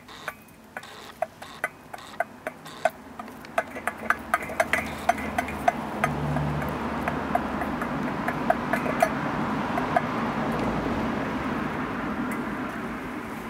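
Hens pecking corn from a stainless steel bowl: sharp metallic taps of beaks on the bowl, quick at first and thinning out. From about four seconds in, a rushing noise swells up beneath the taps and stays.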